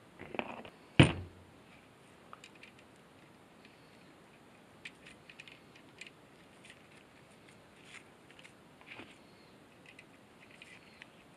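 Metal parts of an electric ATV winch being handled during reassembly: a brief scrape, then one sharp knock about a second in, followed by faint scattered clicks and ticks of screws and hand tools.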